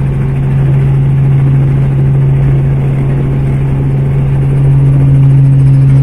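Helicopter engine and rotor heard from inside the cabin: a loud, steady drone with a strong low hum. It grows a little louder near the end, when a second, higher tone joins in.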